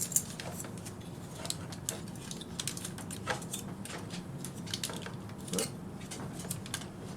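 Scattered small clicks and taps of hard plastic and die-cast toy parts being handled as the side filler pieces of a Bandai DX Chogokin VF-1J figure are pressed into their slots, over a faint steady hum.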